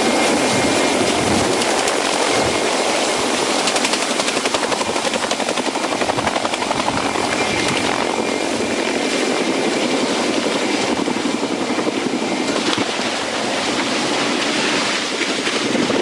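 Helicopter running close by at low hover, its main rotor giving a loud, rapid, even blade chop over the engine noise. A steady high whine runs over the chop and drops away about thirteen seconds in.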